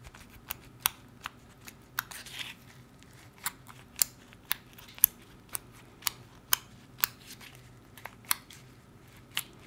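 Freshly activated slime being stirred with a wooden craft stick in a small plastic cup: sharp, wet clicks and pops about two a second at uneven spacing, with a short squelchy hiss about two seconds in.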